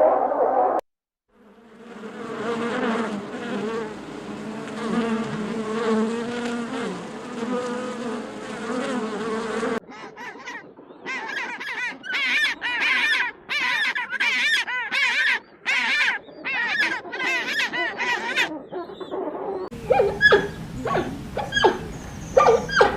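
A sequence of edited animal sounds. First a steady buzzing drone for several seconds, then a run of about a dozen short, wavering, higher-pitched calls, then a few sharp short calls near the end.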